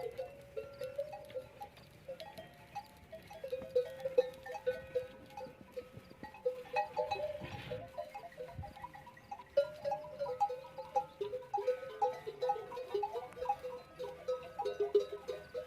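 Many bells hung on a herd of camels clanking irregularly and overlapping, with one brief rough animal call about halfway through.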